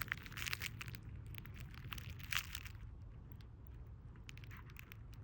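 Light handling noises: scattered small clicks and short crinkly rustles as the vinegar-and-salt soak for the wires is set down and handled, with two slightly louder rustles about half a second and two and a half seconds in.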